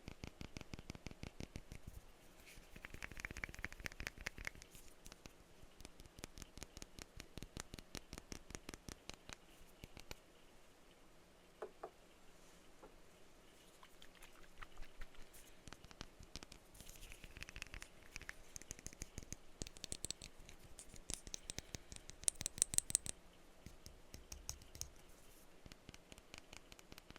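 Rapid tapping on a perfume bottle, fast runs of light clicks with brief ringing tones here and there; the loudest, brightest taps come about 20 to 23 seconds in.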